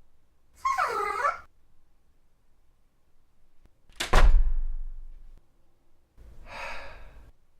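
A short, wavering animal-like whine, then a single heavy thunk about four seconds in, followed near the end by a rougher, breathy cry.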